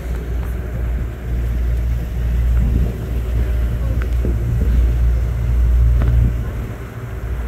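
A moving boat: its motor and the water running along the hull make a steady low rumble that swells and fades, with wind on the microphone.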